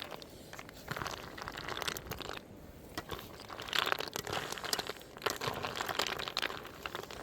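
Irregular crunching and crackling: clusters of short snaps, heaviest in the middle of the stretch.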